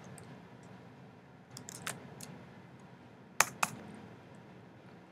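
Scattered key clicks on a computer keyboard, a few light ones followed by two sharper clicks in quick succession about two thirds of the way through, over faint room hiss.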